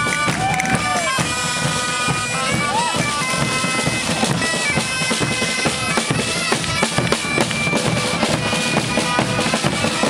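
Bagpipes playing a melody over a held drone, with large rope-tensioned drums beating along.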